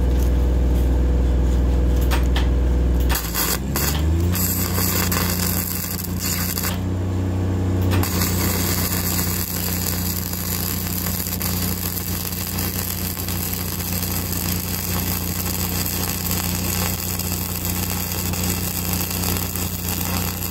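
Flux-core arc welding with 5/64-inch NR-233 self-shielded wire on a steel column splice: a steady crackling, sputtering arc. Under it an engine runs, rising in pitch about three seconds in and then holding steady.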